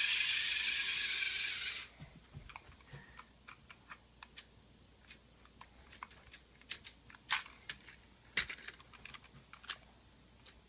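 A toy remote-control car's small electric motor whines steadily at high pitch, then stops abruptly about two seconds in. Light, scattered plastic clicks and taps follow as the toy is handled.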